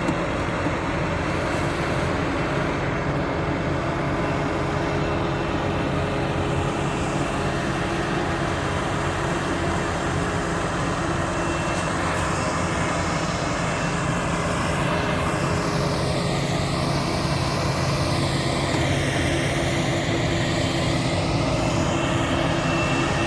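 Heavy farm machinery engine running steadily at a constant speed during a corn silage harvest, with a sweeping, whooshing shift in its higher tone through the second half.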